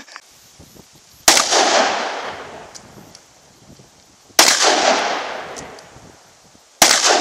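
Three handgun shots, roughly three and then two and a half seconds apart, each a sharp crack followed by a long echo that dies away.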